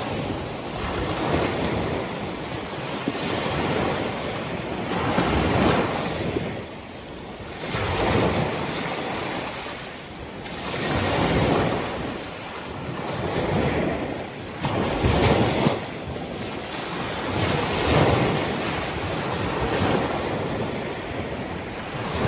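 Ocean waves breaking on a beach, the surf swelling and falling away every few seconds.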